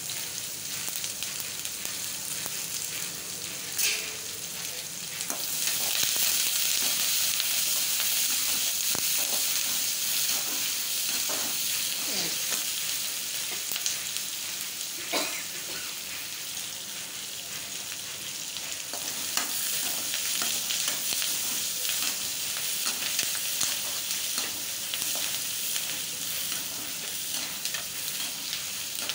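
Sliced onions frying in oil in a metal kadai, sizzling steadily while a slotted metal spatula stirs them, with occasional sharp knocks of the spatula against the pan. The sizzle grows louder about five seconds in.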